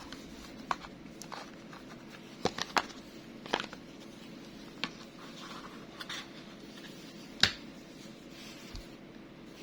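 Zippo lighters being handled: about seven scattered light clicks and taps, the sharpest one near the end, over a faint steady hum.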